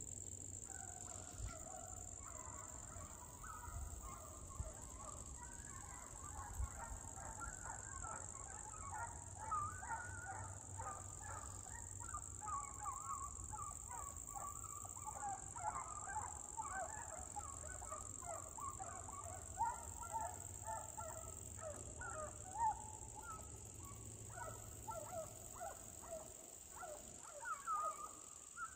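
A pack of hunting hounds baying and yelping in the distance, many voices overlapping, the sign of the dogs running on a deer's trail. A steady high whine sits behind them.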